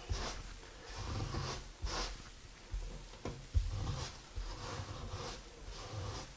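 Putty knife scraping grout into and across tile joints in short, irregular strokes, with light knocks of the tool.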